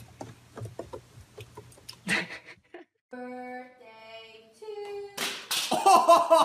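A few held sung notes in steady steps, then a loud burst of laughter and cheering.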